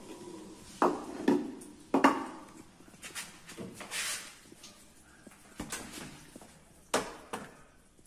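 Irregular knocks and clatter of hard objects being handled, five or so sharp hits, with a brief hiss about four seconds in.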